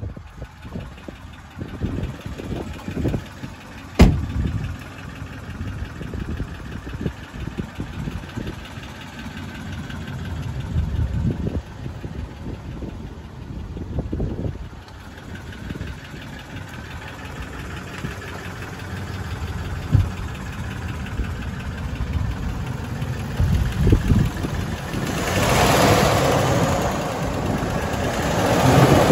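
A Dodge Ram 2500 pickup's engine idling under uneven low rumble, with a sharp knock about four seconds in. A loud hiss swells near the end.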